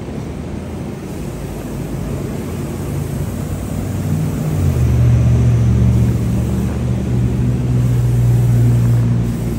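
A machine motor comes up about four and a half seconds in and runs with a steady low hum over a background of rushing noise.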